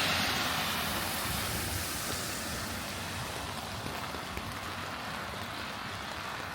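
Steady rain hissing, with the tail of a thunder rumble dying away over the first couple of seconds.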